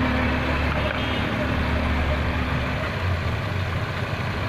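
A vehicle engine idling steadily, a low hum under an even background noise, its pitch shifting slightly about three seconds in.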